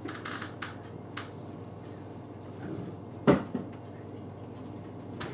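A few light clicks, then one sharp knock a little past three seconds in: parts being handled and set into an open desktop computer case during assembly.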